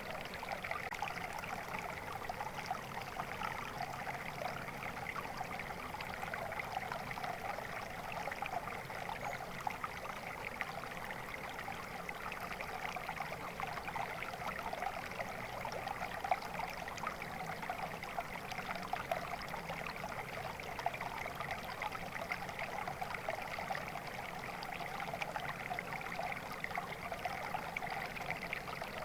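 A stream of water flowing steadily, a continuous babbling rush with fine splashing flicker.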